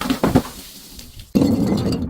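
Something being crushed: a quick cluster of sharp crunches at the start, then a loud, dense crunching from about two-thirds of the way in.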